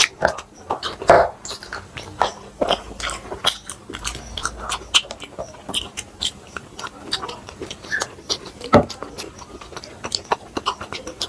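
Close-up chewing and eating sounds of people eating a meal of flatbreads with chana masala: a steady run of small, irregular wet clicks and smacks from mouths and food.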